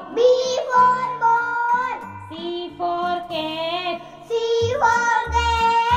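Children's alphabet phonics song: a high singing voice holding long, wavering notes over a synthesized backing with a repeating bass line.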